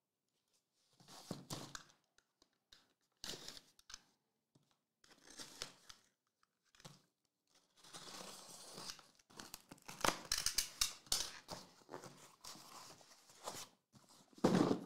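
Plastic packaging on trading-card boxes being crinkled and torn in a few separate scrapes, then a longer stretch of dense crackling. A single knock near the end is the loudest sound.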